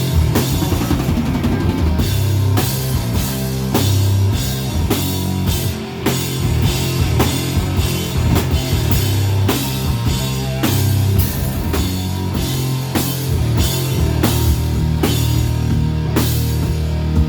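Rock band playing loud heavy rock, with a steady drum-kit beat of kick drum and cymbals over bass and guitar.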